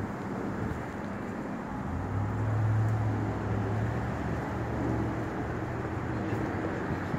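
Wind blowing against the microphone with a steady rush. A low hum swells in about two seconds in and fades again a few seconds later.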